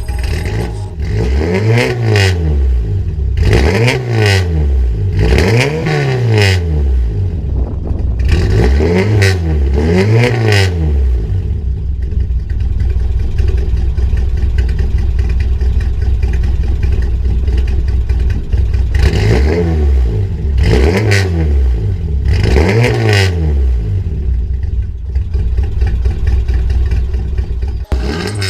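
Mk2 Ford Escort's Pinto four-cylinder engine, breathing through a Cherry Bomb Extreme exhaust silencer, revved in short blips that rise and fall back to idle: five quick revs, a steady idle, then three more revs and idle again.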